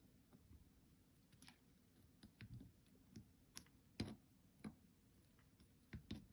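Near silence with a dozen or so faint, short clicks and taps spread unevenly through it, the clearest about four seconds in and again near the end: multimeter test probes and the microwave high-voltage capacitor being handled.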